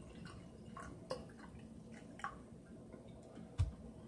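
A few faint, short clicks and taps, with a brief low knock near the end, from objects being handled.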